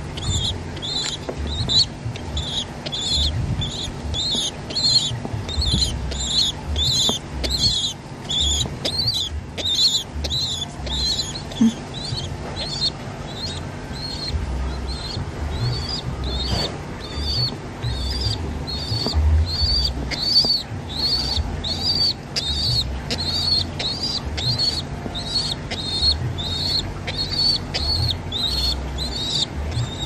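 Rock pigeon squabs begging with fast, repeated high squeaks, about two to three a second, while being hand-fed from a cloth pouch. Their wings flap against the hand, and there are low handling thuds.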